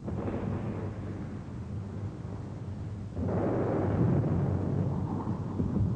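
Rumbling of a bombardment: continuous low explosion noise, swelling into a heavier, louder blast about three seconds in, with a few sharp thuds near the end.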